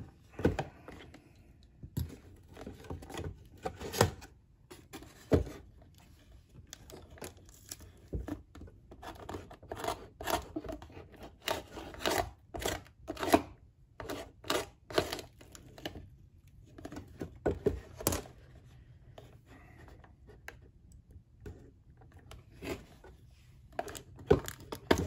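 A cardboard display box insert being handled and torn as a die-cast toy car stuck in it is worked loose: irregular rustling, scraping and tearing of cardboard, with sharp snaps every few seconds.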